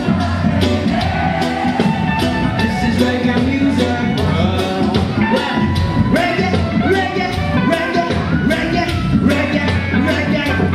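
Live reggae band playing: a steady drum beat, a strong bass line and guitar, with a male vocalist singing into a microphone over it.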